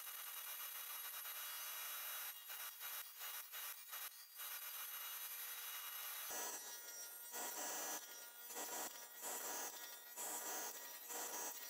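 Table saw with a dado blade cutting a half-lap joint, the board pushed across the blade pass after pass with a faint, rasping sound made of many short strokes. A thin steady tone drops out about six seconds in, and the cutting sounds fuller after that.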